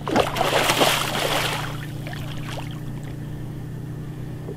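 Water splashing for about two seconds as a hooked pike is landed, then fading, over a steady low hum.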